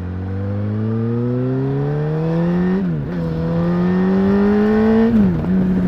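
2006 Yamaha R1's 998 cc inline-four with its stock exhaust, accelerating under load: the revs climb, fall sharply at an upshift about three seconds in, climb again and fall at a second upshift near the end, then hold steady.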